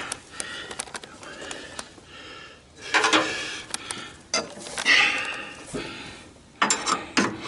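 Steel pry bar scraping and clinking against the metal linkage of a riding mower deck while prying at a pin, in three louder spells of scraping with sharp clicks.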